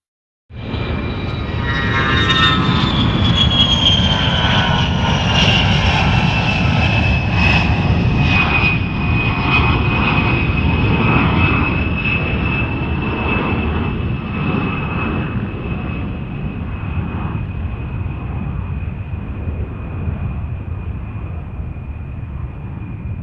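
Aircraft passing: a loud, steady rumble that starts suddenly, with a high whine that falls in pitch over the first several seconds and then holds steady.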